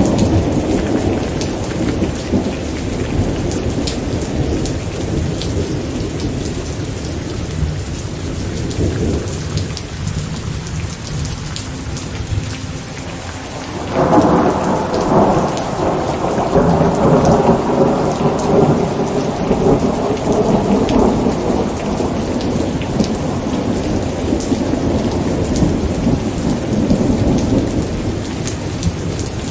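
Steady rain with rolling thunder. A low rumble fades away over the first dozen seconds, then a new peal breaks in suddenly about halfway and rumbles on, slowly dying down.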